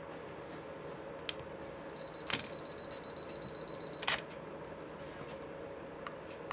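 Camera shutter clicks: a sharp click a little after two seconds in, then a high steady electronic tone that ends in a loud click about four seconds in, with fainter single clicks before and after. A steady hum runs underneath.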